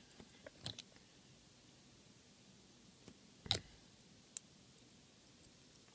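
Mostly quiet room tone with a few faint clicks and taps from plastic model-kit parts being squeezed together in the fingers, the loudest click about three and a half seconds in, followed by a sharp tick about a second later.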